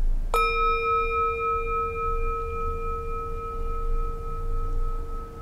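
Handheld metal singing bowl struck once with a mallet about a third of a second in, then ringing on with a low tone and a higher tone that has a slight beating wobble, the brighter upper tones fading within a couple of seconds.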